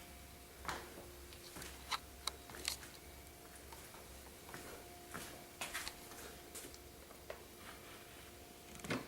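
Scattered light clicks and knocks, a dozen or so at uneven intervals, over a faint steady hum in a small room.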